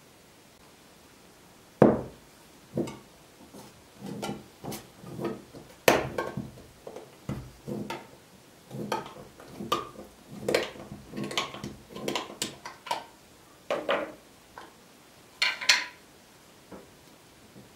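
A glass canning jar with a metal twist-off lid being handled and opened on a table: an irregular run of knocks, clinks and scrapes of glass and metal against each other and the tabletop, the sharpest knocks about two seconds and six seconds in.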